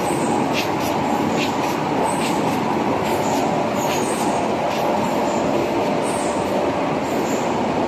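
Corrugated carton printing machine running: a loud, steady mechanical din with a hum, and short sharp clacks about once every 0.8 s through the first half.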